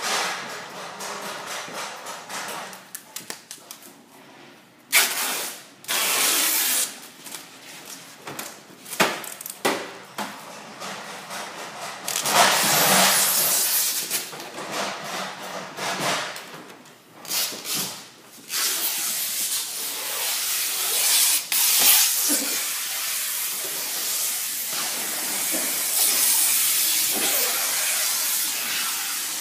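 Plastic stretch film being pulled off the roll by hand and wrapped around a pallet load, giving a hissing noise. In the first half the hiss comes in irregular stretches with sharp knocks; after about the middle it settles into a steadier hiss.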